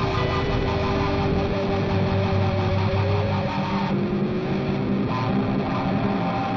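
Blues-rock band music led by electric guitar over bass guitar, with held, sustained guitar notes.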